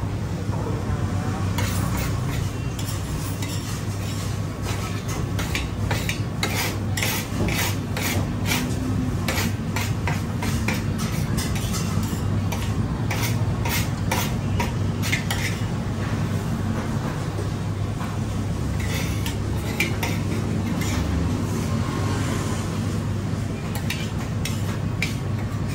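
Metal spoon scraping and clinking against a large ceramic platter, gathering the last grains of rice. The strokes come thick and fast for the first half, then more sparsely, over a steady low hum.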